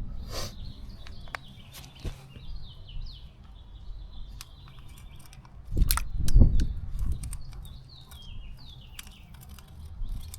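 A small songbird singing, a repeated series of short high notes that slide downward, over a steady low outdoor rumble. About six seconds in there is a sharp knock and a brief louder low rumble.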